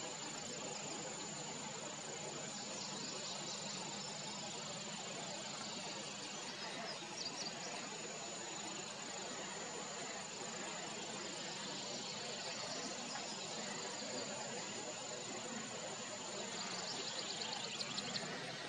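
Insects chirring in the marsh: a steady high drone throughout, with bursts of rapid chirping a few times, strongest near the end.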